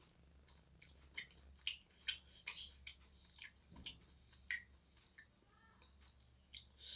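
A person chewing a mouthful of food: faint, irregular mouth clicks and smacks, a few each second.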